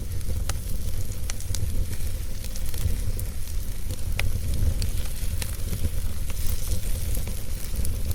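Wood fire burning, with irregular sharp crackles and pops from the burning wood over a faint hiss and a steady low rumble.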